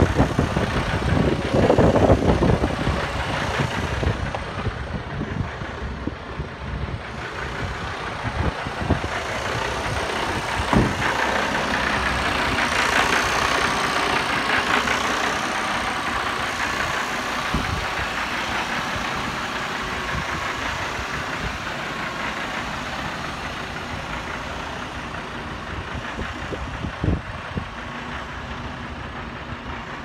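Heavy diesel truck engine idling steadily, with a few dull knocks along the way.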